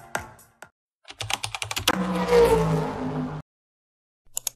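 Electronic dance music fades out, then an intro sound effect: a stutter of rapid clicks building into a whooshing swell with low held tones, which cuts off abruptly. Near the end, sharp clicks begin.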